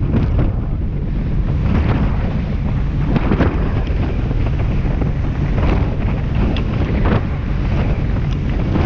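Heavy wind noise on the microphone of a rigid inflatable boat running at speed over choppy sea, with the boat's running noise underneath. Irregular splashes and slaps come every second or two as the hull hits the waves.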